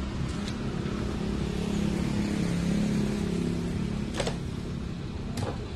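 Low, steady engine hum, swelling toward the middle and easing near the end, with a few sharp clicks about four and five seconds in.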